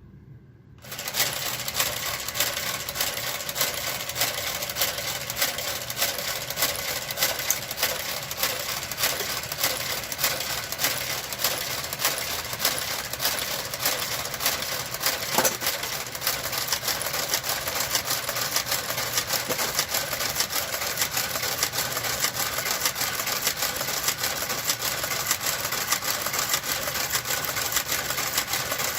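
Knitting machine running: the carriage clatters steadily along the needle bed with a rapid run of regular clicks, starting about a second in.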